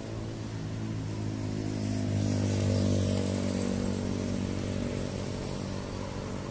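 Street traffic with one vehicle's engine running at a steady pitch, getting louder to a peak two to three seconds in as it passes, then easing off.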